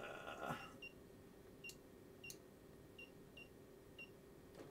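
Short, faint, high electronic beeps from a benchtop function generator's buttons and knob as its waveform setting is changed, about six spread over a few seconds, with a couple of sharp button clicks among them.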